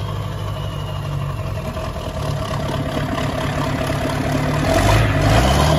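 Ford 7.3 Powerstroke turbo-diesel V8 running at low revs in a pickup stuck in a mud hole. It revs up near the end, getting louder.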